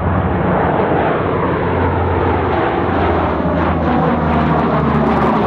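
Jet airliner engine noise, a steady loud rushing drone with a low hum beneath it.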